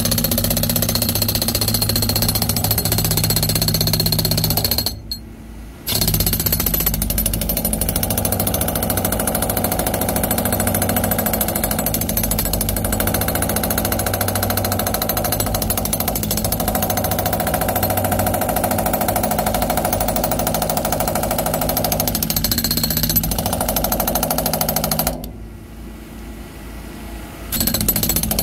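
Jackhammer chipping hardened concrete out of a cement mixer truck's drum: continuous hammering that stops twice for a second or two, about five seconds in and again near the end.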